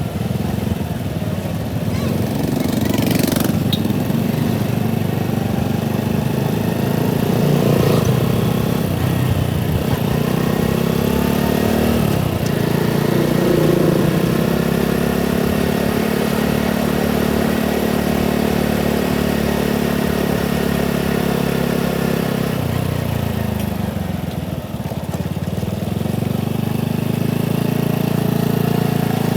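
Motorcycle engine running as it rides along, with wind and road noise. Its pitch shifts with speed, easing off and dropping a little past twenty seconds in, then picking up again a few seconds later.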